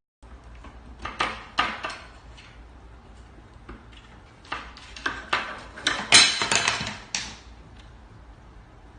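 Wooden kitchen cabinet doors rattling and knocking as a cat tugs at the handles, which have a utensil slid through them as a makeshift lock. There is a short run of clattering knocks about a second in, then a louder cluster from about four and a half to seven seconds in.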